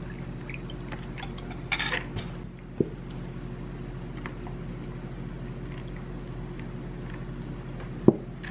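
Steady low hum with a few light clicks and knocks as a glass measuring cup and an almond milk carton are handled and poured into a cup. There is a short noisy burst just under two seconds in.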